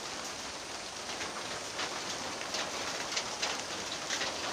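Steady rain falling fairly heavily, with many separate drops striking close by.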